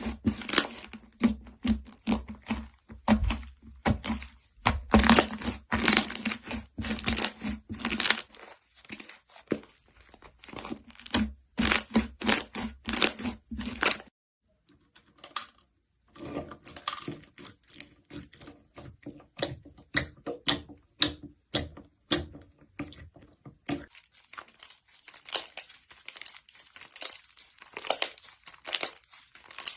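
Slime being pressed and squished, a dense run of sharp crackling clicks and pops. It breaks off into near silence about halfway through, then starts again with a fuller, more hollow ring.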